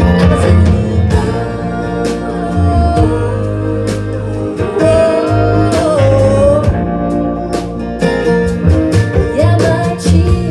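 Live band music: acoustic guitar and electric bass playing over drums, with a sliding melody line over the top.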